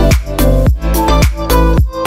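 Background music: an upbeat electronic track with a steady beat and deep bass.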